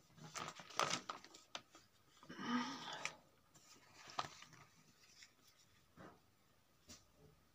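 Sheets of handwritten notebook paper being lifted and turned, rustling, with a longer rustle as a page slides away a little over two seconds in and a few light clicks afterwards.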